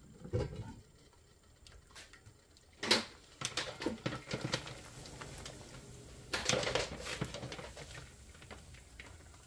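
Stainless steel pot lid lifted off, a sharp knock about three seconds in, then handfuls of sweet potato stems dropped into boiling water and pressed down by hand, rustling in two bursts.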